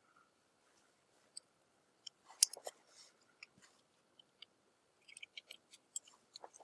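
Faint, scattered small clicks and taps from handling a transistor and a component tester: the part being fitted in the tester's socket and the tester's push button being pressed. The loudest click comes about two and a half seconds in, with a quick run of lighter clicks near the end.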